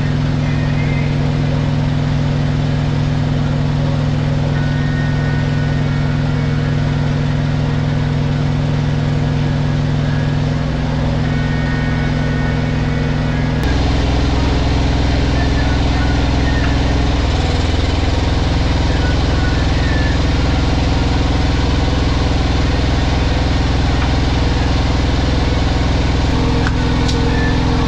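Steady low hum of idling diesel semi-truck engines at a truck-stop fuel island. About halfway the hum drops deeper and gets a little louder.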